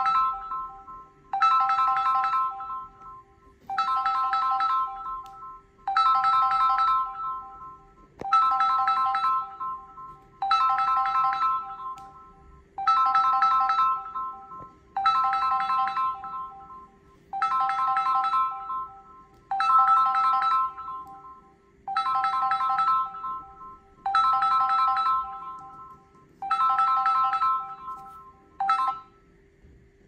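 Samsung Galaxy smartphone's incoming-call ringtone: the same short phrase of three steady notes repeating about every two seconds. It cuts off abruptly near the end as the call is answered.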